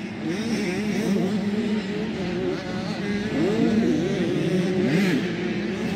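Several motocross bikes racing, their engines revving up and down through the gears, with the pitches rising, falling and overlapping.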